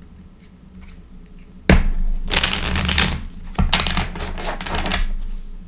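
A tarot deck being shuffled by hand: a sharp tap of the deck, then two quick spells of rapid card shuffling, the second starting with another tap.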